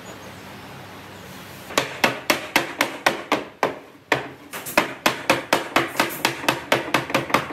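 A quick run of hammer blows on a wooden block laid on a round wooden shelf, knocking the shelf down into its seat inside a slatted wooden frame. The strikes start nearly two seconds in, come about three a second, and pause briefly about halfway through.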